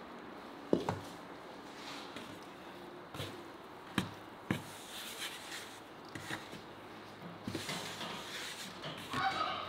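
Food-preparation handling sounds: a few sharp knocks and taps, spaced seconds apart, over quiet rubbing and shuffling, with a busier patch of handling near the end.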